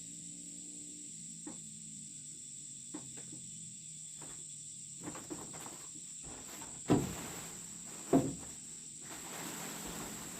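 Steady high-pitched insect chirring, with scattered light clicks and two sharper knocks about seven and eight seconds in.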